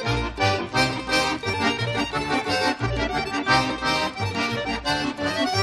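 Bouncy accordion music with a steady oom-pah bass beat.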